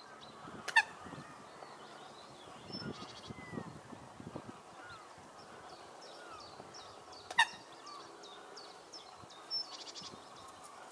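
Eurasian coots calling: two loud, sharp single calls about six and a half seconds apart, over faint high chirping in the background.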